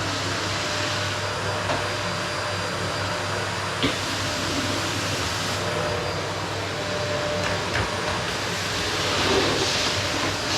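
Vacuum cleaner running steadily over a wooden floor: a continuous whooshing motor and airflow noise with a low hum. A few light knocks come through about 2, 4 and 8 seconds in, and it swells slightly near the end.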